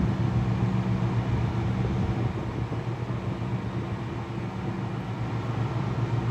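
Steady low hum of running industrial machinery from an oil purification plant, with a few constant tones held throughout.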